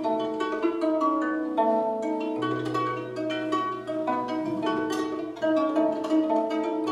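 Plucked string instrument playing a melody of ringing, overlapping notes, with a low note held underneath for about two seconds in the middle.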